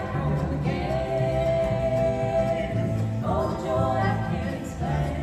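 Women singing together in harmony with an acoustic string band of guitar, fiddle and upright bass, played through a PA in a large hall. A long held sung note runs from about a second in, over steady plucked bass notes.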